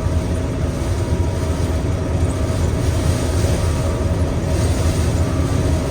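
Gleaner M2 combine running steadily while harvesting soybeans, a constant mechanical drone with a low hum and a few steady tones. The machine is running light and quiet, with little crop going through in a drowned-out patch of the field.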